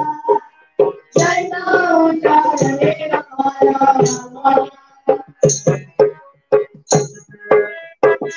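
Boys' choir singing with harmonium and drum accompaniment. The drums keep a steady beat that stands out most in the second half.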